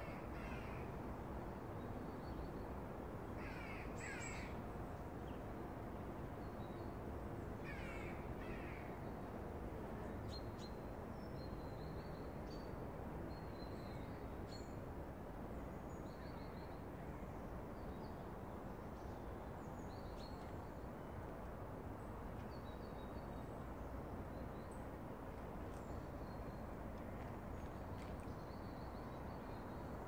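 Garden birds calling: harsh cawing calls, mostly in pairs, during the first ten seconds, and small birds chirping on and off throughout, over a steady low background hiss.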